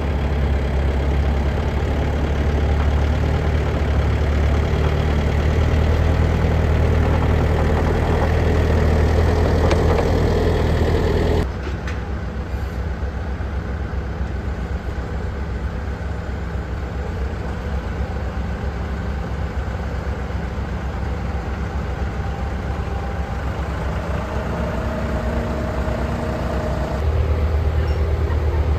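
An engine running steadily with a low drone. Its level and tone change abruptly about 11 seconds in and again near the end.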